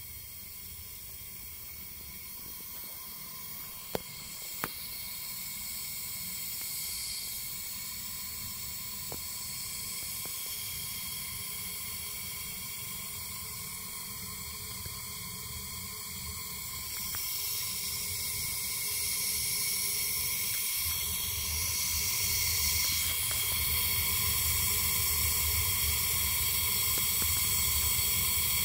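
Viessmann Rexola-biferral boiler's gas burner firing with a steady hiss. The burner has just been replaced. The hiss grows louder about two-thirds of the way through, and a low rumble comes in with it. Two sharp clicks about four seconds in.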